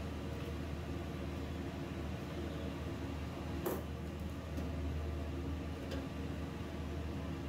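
Steady mechanical hum, like a fan or appliance running, with a few light clicks, the sharpest a little past halfway.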